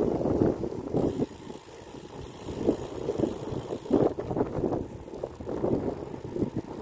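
Wind buffeting the microphone of a phone carried on a moving road bicycle, an uneven low rumble that swells and dips.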